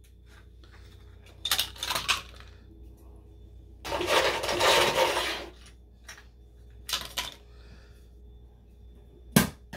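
Ice cubes clinking against each other and the glass as they are handled and dropped into a tall glass of iced coffee, in several short bursts with a longer rattle midway and a sharp clink near the end.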